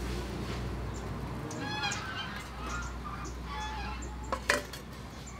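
Domestic fowl honking a few times, first about two seconds in and again more briefly a second or so later, over a steady low hum. A single sharp knock comes near the end.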